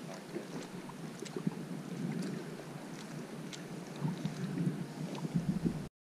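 Wind buffeting an action camera's microphone, a steady rumble with faint scattered clicks, gusting stronger in the last couple of seconds before the sound cuts off near the end.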